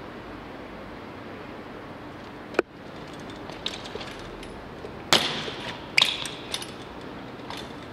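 BMX bike hitting the concrete twice about a second apart in the second half, each hard impact followed by the chain and frame rattling, over steady street background noise. A single sharp click comes a third of the way in, and a few lighter knocks fall in between.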